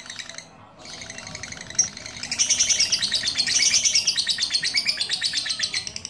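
Lovebird's rapid chattering song: a fast, unbroken run of high chirps that stops briefly just under a second in, then comes back and gets louder from about two seconds in.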